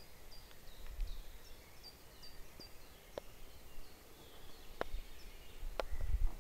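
Birds calling in woodland: a run of short, high chirps repeated about three times a second over the first few seconds. Three sharp cracks follow in the second half, with a low rumble near the end.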